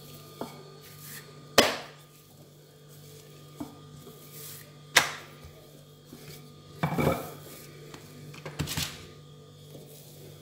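Wooden rolling pin rolling out dough on a silicone mat, with two sharp wooden knocks, about a second and a half in and again about five seconds in, and softer rolling bumps later. A faint steady low hum runs underneath.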